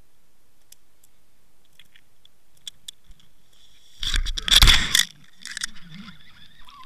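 Underwater camera dragging and scraping over weed-covered rock as it is pulled up off the bottom, heard through its own housing. A few faint clicks come first, then a loud scraping rush about four seconds in, followed by softer scrapes.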